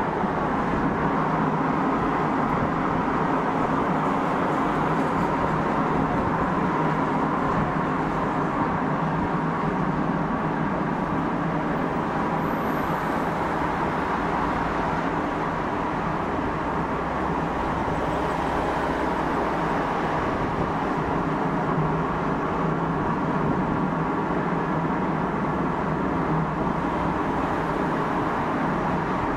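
Road traffic: a steady, unchanging noise of engines and tyres from cars driving along a road, with no revving or distinct events.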